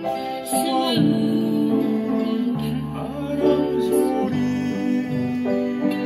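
Upright piano played with both hands, a melody over chords, with a second part alongside that slides in pitch now and then.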